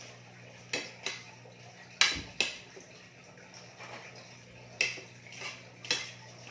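Metal spoons clinking and scraping against ceramic plates while eating, as a scattered series of sharp clinks, the loudest about two seconds in, over a steady low hum.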